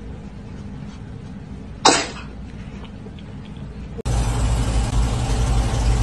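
A cat giving one sudden, short, explosive sneeze-like burst about two seconds in. About four seconds in, a steady low rumble starts abruptly.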